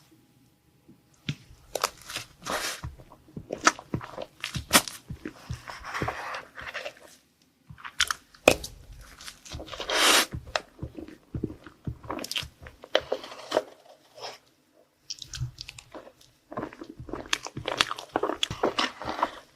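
Close-miked biting and chewing of a crisp food: irregular crunches and crackles in quick clusters, broken by a couple of short pauses.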